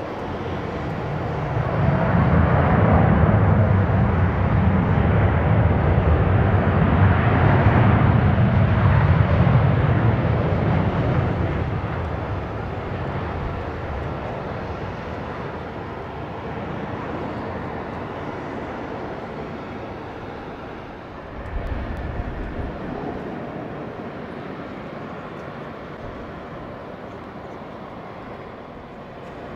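Boeing 787-8 airliner's Rolls-Royce Trent 1000 turbofans in reverse thrust during the landing rollout: a loud rumble that swells about two seconds in, then fades slowly as the jet decelerates and moves away. A brief low thump comes about two-thirds of the way through.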